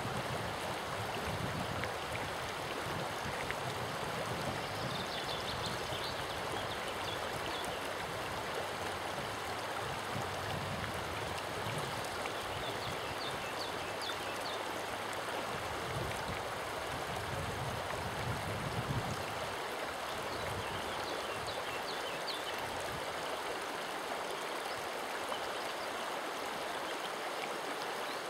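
River water flowing over its bed, a steady rushing murmur. A low rumble underneath fades out about two-thirds of the way through, and faint high chirps come through now and then.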